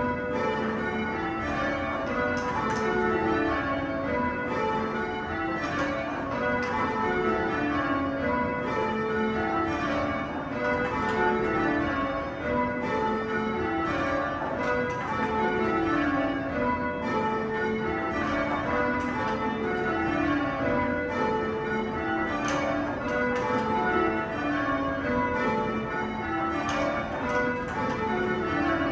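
English church tower bells rung full-circle by a band pulling the ropes (change ringing), heard from the ringing chamber below the bells. The bells strike one after another in descending runs from the highest note to the lowest, repeated in a steady rhythm.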